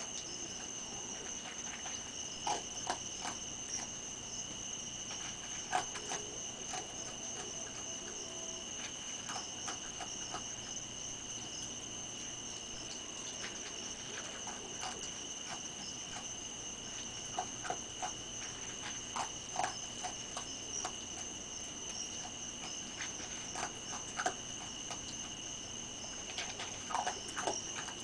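A raccoon eating dry food from a plate: irregular short clicks and crunches as it chews and noses the plate, a cluster about two to three seconds in, around six seconds, and again near the end. Under it runs a steady high two-pitched insect trill.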